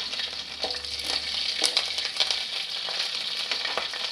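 Curry leaves, dried red chillies and green chillies sizzling in hot oil for a tadka (tempering), a steady hiss with scattered pops and crackles.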